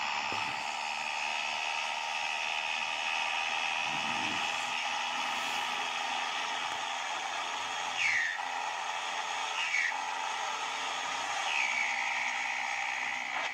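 Tractor engine and drivetrain running steadily at road speed, heard from on board, with a steady high whine held over the engine. From about eight seconds in come three short tones falling in pitch, the last the longest.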